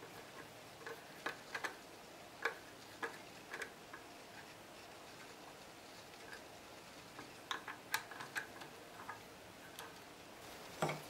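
Light, irregular metal clicks and taps from a knock-down furniture cam connector being fitted by hand: the steel connector bolt fingered into its hole and the cam housing turned with a screwdriver. A small cluster of clicks comes about eight seconds in.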